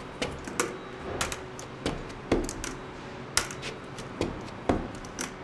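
Metal crutch tips and footsteps knocking on concrete steps as a person on crutches takes the stairs: irregular sharp clicks and thuds, two or three a second.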